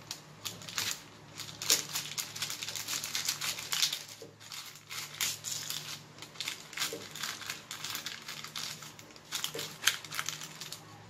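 Plastic spatula scraping under baked chocolate cookies and crinkling the parchment paper on a baking pan, in a run of irregular rustles and scrapes.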